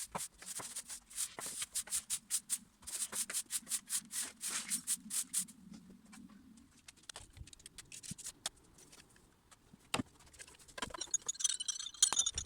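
Garden rubbish being handled: a rapid run of short scraping and rustling strokes for about five seconds, then scattered clicks and knocks.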